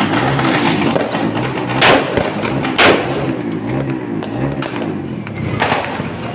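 Fireworks going off: two sharp, loud bangs about a second apart near the middle, with smaller pops around them, over music playing in the background.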